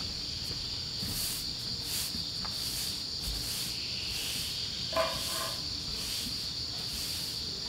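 Straw broom sweeping a wooden deck in slow swishes, about one a second, over a steady high-pitched drone of insects. A brief call sounds about five seconds in.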